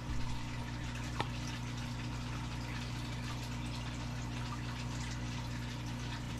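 Steady low electrical hum with an even hiss: room tone, with one faint click about a second in.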